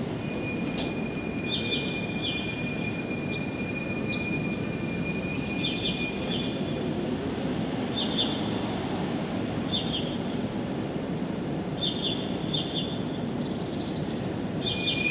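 Songbird repeating a short chirping phrase about every two seconds, over a steady low rushing background. A thin steady high tone holds through the first half.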